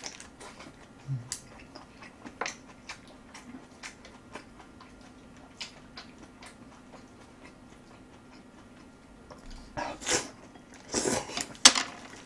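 A person chewing braised short ribs and aged kimchi with rice at close range, with scattered small clicks of mouth and chopsticks and a few louder noisy mouth sounds about ten and eleven seconds in.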